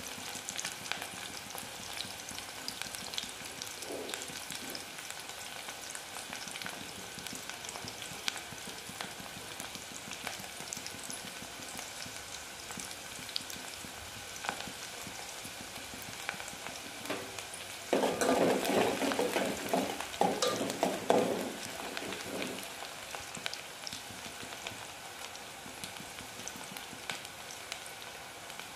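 Sliced onions frying in hot oil in a pot, a steady sizzle with fine crackles; the onions are still pale, early in frying to a golden brown. A louder, lower spell lasts a few seconds just past the middle.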